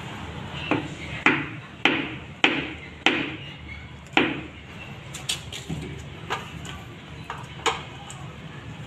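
A mallet tapping a ceramic riser tile down into its mortar bed to set it: six sharp strikes about half a second apart, then lighter knocks and clicks as the tile is adjusted.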